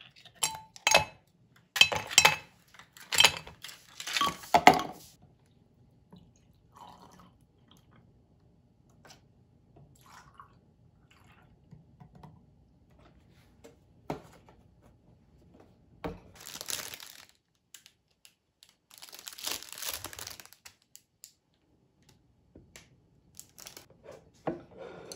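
Glassware knocked and set down on a tabletop in a quick cluster of sharp clinks. Later, milk is poured into the glasses in two short splashing spells, with a few light clicks of utensils near the end.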